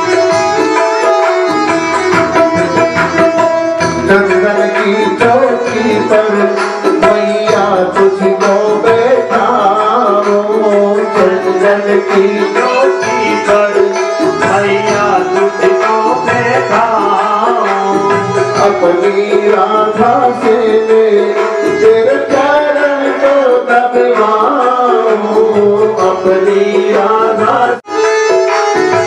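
Indian devotional music: tabla playing a rhythm under a melody with steady held drone notes. The sound cuts out for an instant near the end.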